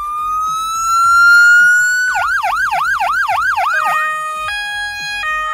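Electronic siren of a TornadoX Duo roof-mounted beacon/siren unit, stepping through its tones: a slow rising wail, then about two seconds in a fast yelp sweeping up and down about three times a second, then near the end a two-tone pattern switching between steady pitches.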